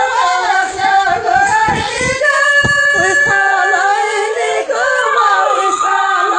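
Background song: a woman singing a melody over musical accompaniment.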